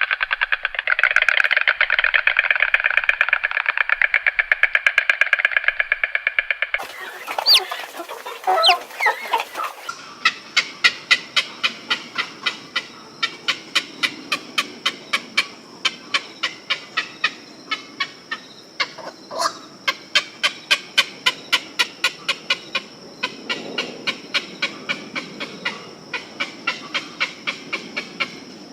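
A dense flock chorus of rapid bird calls, which cuts off about seven seconds in. Then come a few gliding calls, and then domestic chickens clucking in a long series of short, evenly spaced calls, a few each second.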